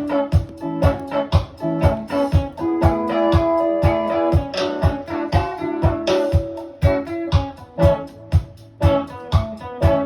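Music with a steady beat of about two strokes a second, led by plucked guitar notes.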